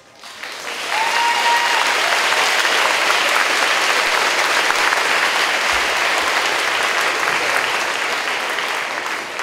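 Audience applauding: the clapping builds over the first second, holds steady, and eases off near the end.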